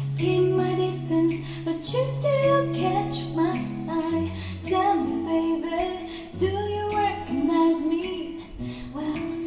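Music: a woman singing a slow pop ballad over plucked acoustic guitar and held bass notes, played back through hi-fi bookshelf speakers.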